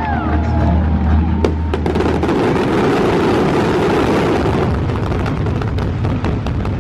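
A fireworks finale barrage: booms and bursts run together into one continuous mass of sound, loudest about three to four seconds in. Show music with a deep bass note plays under the opening two seconds.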